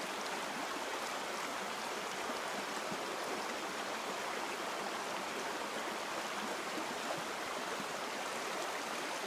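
Small freestone creek running over rocks in a riffle: a steady, even rush of flowing water.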